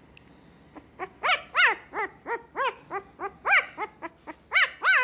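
A very young puppy yelping in a quick series of short, high calls, each rising and falling in pitch, about three a second, starting about a second in.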